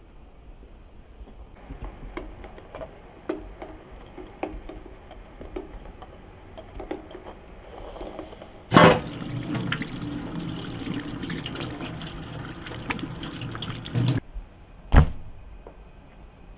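Light kitchen clicks and knocks, then about five seconds of water pouring and splashing into a pot, starting and stopping abruptly, followed by one sharp knock.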